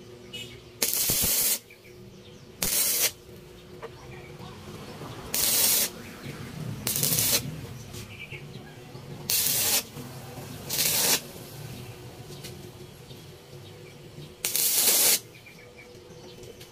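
Stick (arc) welder crackling and hissing in seven short bursts of under a second each: short tack welds fixing an air-valve fitting onto a motorcycle monoshock part.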